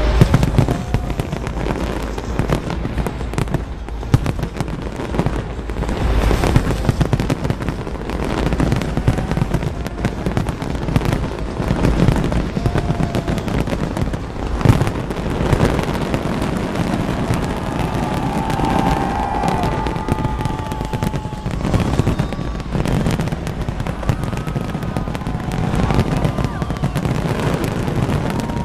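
Large fireworks display: a dense, continuous barrage of bangs and crackling from many shells bursting at once, with a few louder booms standing out.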